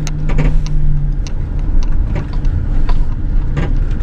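Van driving slowly, heard from inside the cabin: a steady low engine and road rumble, with a low hum that fades about a second in and scattered small knocks and rattles.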